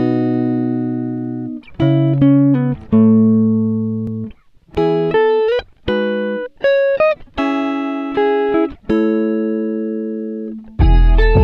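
Intro music of plucked string notes and chords, each struck and left to ring out and fade, with a fuller, louder passage with deep bass coming in near the end.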